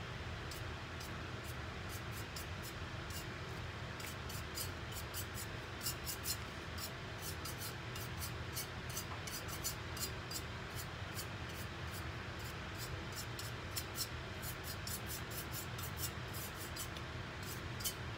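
Paintbrush dry-brushing paint onto a painted tumbler: quick light bristle scratches and ticks, several a second, over a steady low hum.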